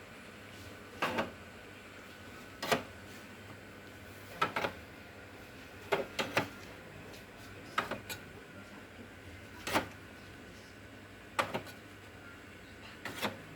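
Light clicks and knocks of small hard items being set down one at a time, about every one and a half to two seconds, some landing as a quick double tap.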